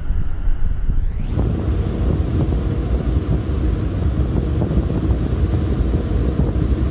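Wind buffeting the microphone at sea, a heavy low rumble under a steady rush of noise. About a second in, the sound changes abruptly and becomes fuller and louder in the low end.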